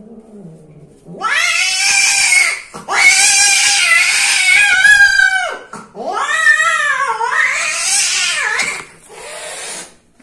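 Female cat yowling loudly during mating: a low, faint yowl first, then three long wailing cries and a shorter, quieter one near the end. This is the typical cry of a female cat at the end of copulation.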